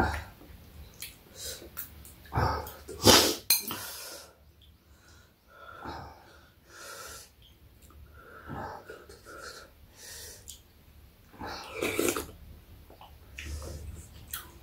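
Eating sounds at a meal of hot seafood soup: short noisy slurps and sharp breaths, loudest a few seconds in and again near the end, with a few light clicks of spoon and chopsticks.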